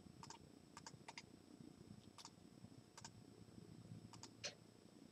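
A handful of faint, irregular computer mouse clicks.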